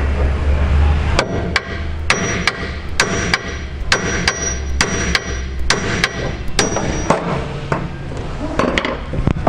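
A hammer striking the side of a Mitsubishi Triton's cast steering knuckle in a rapid run of sharp metallic blows, two to three a second, some with a high ring, to shock the ball joint's tapered stud loose. The blows stop about seven seconds in, with a couple more near the end, over a low hum that fades about halfway.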